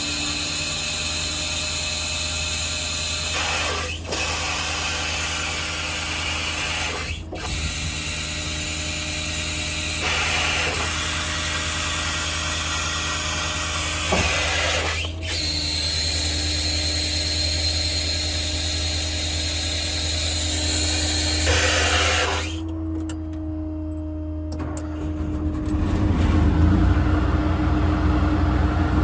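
Service truck's hydraulic system running under load as the outriggers are worked: a steady mechanical whine and hiss, broken briefly three times, cutting off about three-quarters of the way through. A lower engine sound runs underneath and grows louder near the end.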